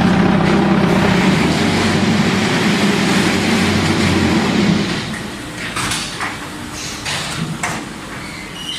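Concrete block making machine running: a loud steady hum for about the first five seconds, the machine's vibrating compaction stage, which then stops and gives way to scattered metallic knocks and clatter of the machine's moving parts.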